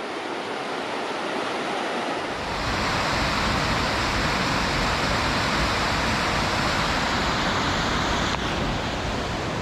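Rushing water of the Amable du Fond River's rapids and falls, a steady roar that grows louder and deeper about two seconds in.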